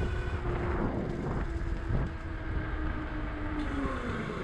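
Engwe Engine Pro 2.0 e-bike's electric hub motor whining at a steady pitch over wind and tyre rumble while riding at speed. Near the end the whine falls in pitch as the bike slows.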